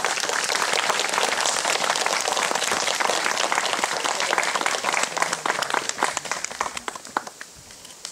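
Audience applauding steadily, thinning to scattered claps near the end.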